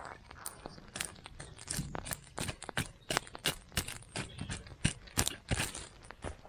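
Wood campfire crackling, with sharp irregular pops several times a second, while its burning logs and embers are poked and pushed about with a stick.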